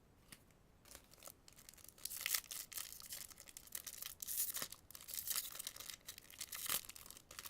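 A foil Yu-Gi-Oh booster pack being torn open and crinkled in the hands, in short irregular crackles. It is fiddly to get open.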